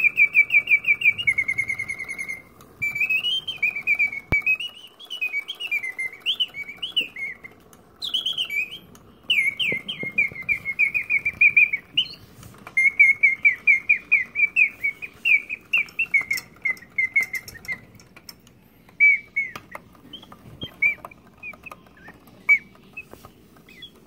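German Griesbaum singing-bird cage automaton whistling its song through its bellows-driven whistle: rapid trills and rising and falling warbled chirps in phrases with short pauses. After about eighteen seconds the song thins to scattered chirps, which stop shortly before the end.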